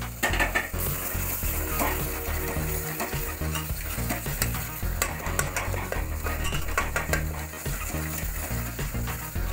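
A metal spoon stirring thick curry gravy in an aluminium pressure cooker, with repeated scraping and clicking against the pot. The gravy is sizzling over the heat as gram flour is mixed in.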